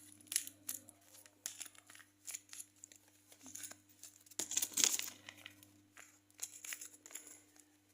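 Plastic or paper packaging crinkling and being torn, with many small crackles and one louder tear about halfway through.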